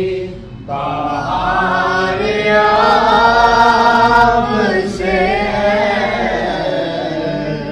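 A man singing an Urdu naat unaccompanied into a handheld microphone, drawing out long, ornamented held notes, with a short breath pause just after the start.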